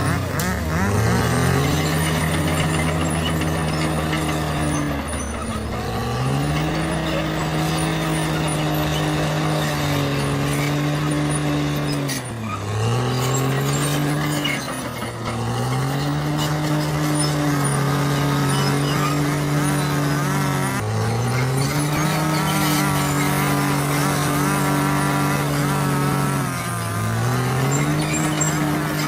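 Bulldozer's diesel engine working hard. Its pitch sags and then climbs back up about six times as the engine lugs under load and recovers.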